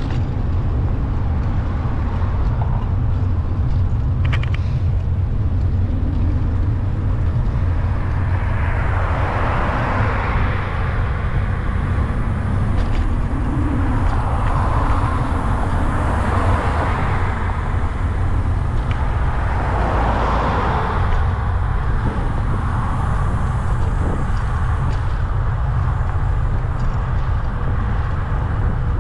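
Road traffic heard from a moving bicycle: a steady low rumble of wind on the microphone, with several vehicles passing, each a swell of tyre and engine noise that rises and fades.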